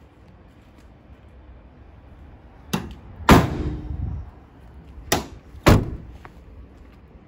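The two rear barn doors of a Volkswagen Transporter van are shut one after the other: two heavy metal slams about two and a half seconds apart, each coming just after a sharper click. The first slam rings on longer.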